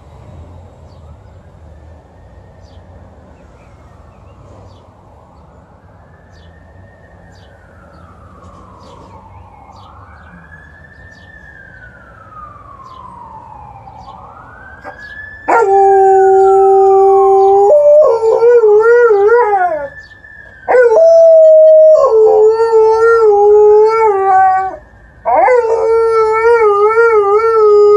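Ambulance siren wailing in slow rising and falling sweeps, getting louder. About halfway in, an Alaskan Malamute answers it with loud, long, wavering howls, about five in a row, while the siren goes on under them.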